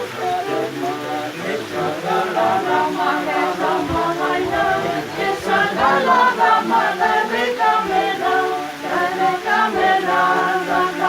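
Traditional Cantabrian rabel music: a bowed folk fiddle playing a melody, with a voice singing along.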